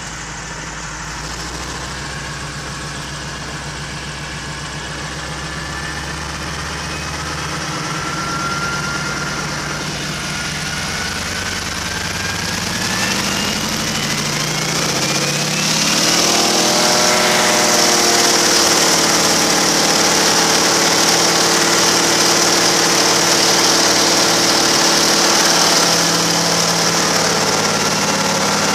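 Noorduyn Norseman's radial engine and propeller running at low power as the plane taxis. About halfway through, the engine speeds up with a rising whine over a few seconds, then holds steady at a louder, higher power.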